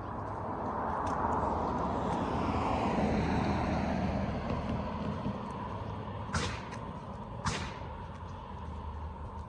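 A car passes by on the street, its noise swelling and then dropping in pitch as it goes. Two sharp clicks follow, about a second apart, near the end.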